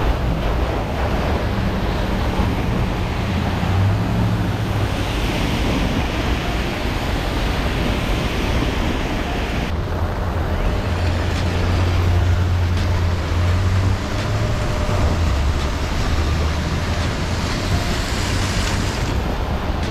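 Traffic on a rain-soaked street: car tyres hissing through standing water and engines rumbling as vehicles pass, over a steady wash of rain. The rumble swells a few seconds in and again near the middle.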